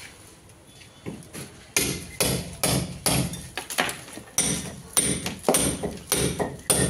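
Hand hammer striking a chisel into a brick wall, chipping out a groove for electrical wiring. About two sharp blows a second, starting a little under two seconds in.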